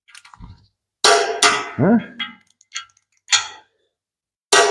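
Tools and parts on a tractor engine block clanking: a handful of sharp metallic knocks and clinks with short ringing, spread through a few seconds of work on the main bearing caps.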